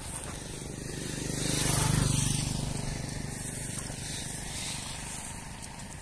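A motor vehicle's engine passing by: a low hum that swells to its loudest about two seconds in, then fades away.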